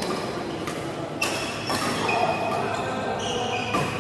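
Badminton rally: several sharp racket hits on the shuttlecock, with short high squeaks of shoes on the court floor between them.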